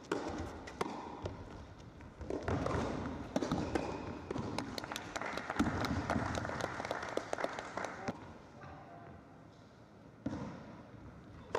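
Tennis ball struck by racquets in a serve-and-volley point on an indoor carpet court, then scattered applause from a small crowd for a few seconds. The applause dies down and is followed by a quieter stretch.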